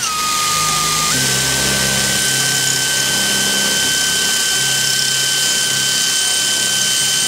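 Cordless drill running continuously as it drills out a spot weld in the car's sheet-steel wing bracket mount. Its whine steps up slightly in pitch about a second in.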